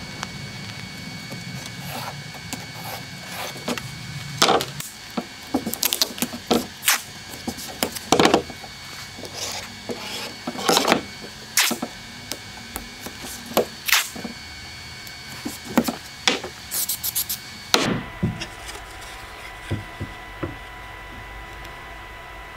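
Irregular light knocks, taps and rubs of wooden boards and a template being handled and set down on a workbench, mixed with tape being pulled off its roll and pressed down. The sounds come in scattered clicks over the first three quarters, then only a few faint ones.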